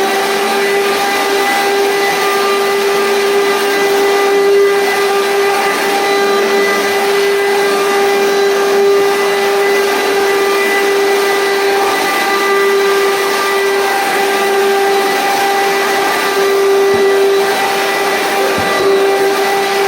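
Commercial vacuum cleaner's motor running at full speed, a steady whine over the rush of air.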